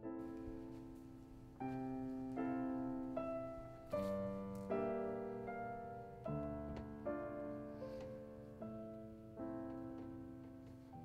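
Slow piano music: chords struck about once a second, each left to ring and fade before the next.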